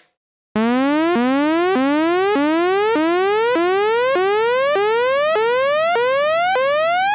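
Native Instruments Massive software synth playing a pitched riser patch, starting about half a second in: a buzzy tone in short upward sweeps, about one and a half a second, each snapping back down, while the whole pattern slowly climbs in pitch like a rising siren. The quick sweeps come from one tempo-synced LFO on pitch, and the slow climb from a second LFO taking the pitch from 24 semitones down to 24 up over eight bars.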